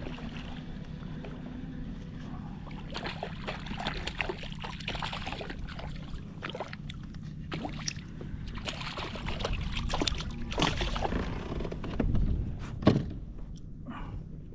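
Water sloshing and splashing against a fishing kayak over a steady low rumble, with scattered short knocks and one sharper knock near the end.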